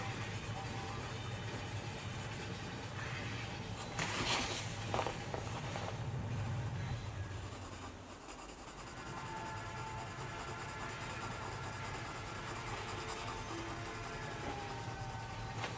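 Coloured pencil shading on sketchbook paper: a steady scratchy rubbing of the lead, with a few louder strokes about four to five seconds in.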